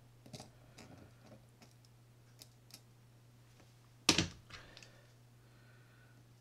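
Small clicks and taps of a tiny screw and screwdriver being handled on a baitcasting reel's post plate, with one sharper, louder click about four seconds in. A faint steady low hum runs underneath.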